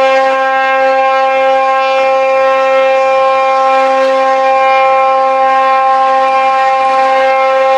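A horn sounding one long, steady blast that holds a single pitch and cuts off abruptly.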